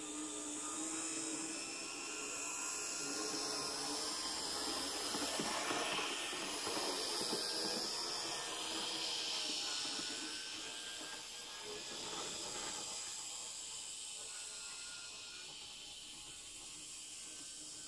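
Z-gauge model train running along its track: a high, hissing whine from the tiny locomotive's motor and wheels, growing louder toward the middle and easing off near the end.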